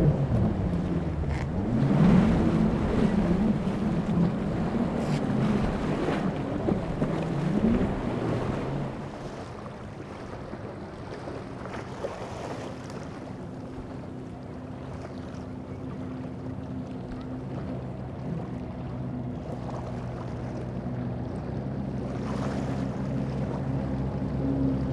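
Twin outboard engines on a fast boat running hard, their pitch swinging up and down several times as the hull leaves and hits the waves, with water spray. After about nine seconds the sound turns quieter and steadier: a race catamaran's outboards held at speed, under wind and water noise.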